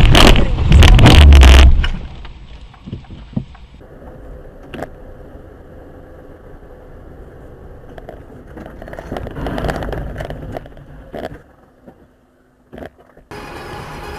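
A car crash picked up on a dashcam microphone: a very loud, distorted impact noise for the first two seconds, cutting down sharply to quieter car noise with a few knocks and rattles.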